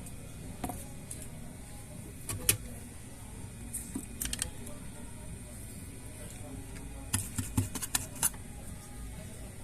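Light clicks and taps of small tools and parts being handled on a repair bench, over a steady low hum. The loudest click comes about two and a half seconds in, and a quick run of clicks follows near the end.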